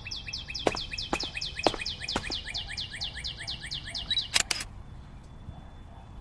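A fast, even trill of high bird chirps, each sweeping downward, about seven a second, with a few sharp clicks underneath. The chirps stop abruptly about four seconds in, right after a pair of sharp clicks.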